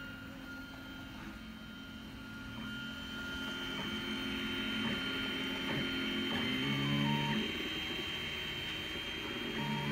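Desktop FDM 3D printer printing its first layer: the stepper motors sing in short tones that change pitch from move to move, growing busier from about four seconds in, over a steady high whine from the print-head cooling fan.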